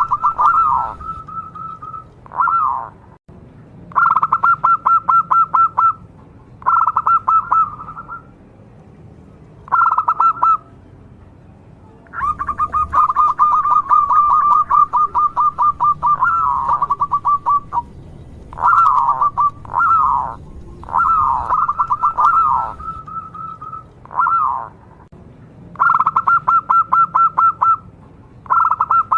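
A local zebra dove singing its song over and over. Each phrase is a run of fast rattling coo notes at one pitch, mixed with quick falling notes, and the phrases are separated by short pauses. One longer phrase of about five seconds begins some twelve seconds in.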